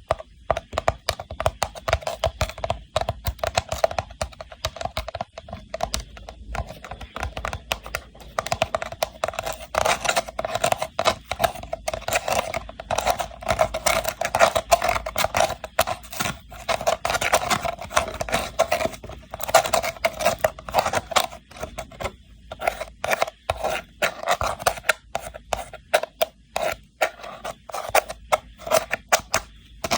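Rattan box being tapped and scratched: rapid, irregular clicks and scrapes on the woven cane.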